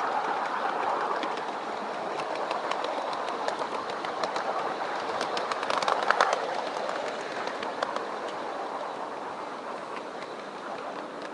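7¼-inch gauge miniature train running along the track, heard from on board: a steady rush of wheels on rail with a scatter of sharp clicks from the rail joints, loudest about six seconds in and easing off towards the end.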